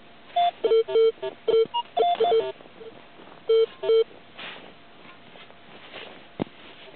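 Minelab X-Terra 705 metal detector sounding a quick run of short beeps at two or three different pitches, signalling a metal target in the ground, then two more beeps a moment later. A single sharp knock near the end.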